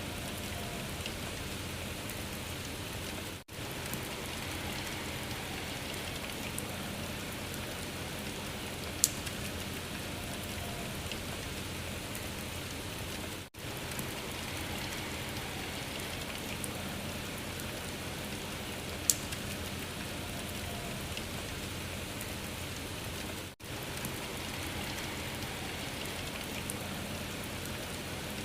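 Steady rain hiss, a recording looped about every ten seconds: it drops out for an instant three times, and a single sharp tick recurs twice, once per loop.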